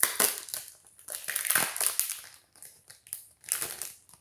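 Foil wrapper of a Pokémon booster pack crinkling in several quick bursts as it is handled and torn open.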